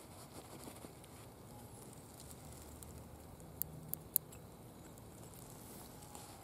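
Hand-forged iron snips clicking three times in quick succession as the blades are worked open and shut, over faint rustling of a canvas tool roll being handled.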